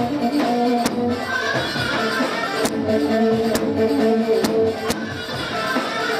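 Turkish halay dance music: a melody line over a steady drum beat that strikes about once a second.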